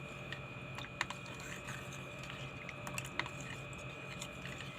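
A few faint, scattered clicks and taps of kitchen items being handled, over a steady low hum and a thin high whine.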